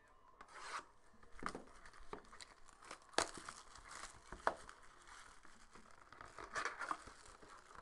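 Clear cellophane shrink wrap being torn and peeled off a sealed trading card box: irregular crinkling and crackling plastic, with a couple of sharp crackles and a busier stretch of crinkling near the end.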